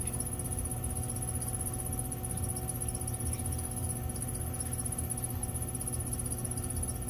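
Electric potter's wheel running with a steady, unchanging hum as the clay spins.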